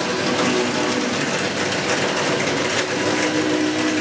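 Bakery machinery running steadily: a continuous mechanical din with a hum of a few held tones.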